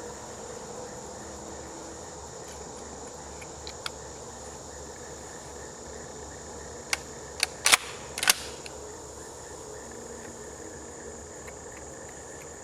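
Sharp mechanical clicks and clacks from handling the pump shotgun, most likely its pump action and loading: two faint ones about four seconds in, then a quick cluster of four louder ones around seven to eight seconds in. Insects drone steadily in the background.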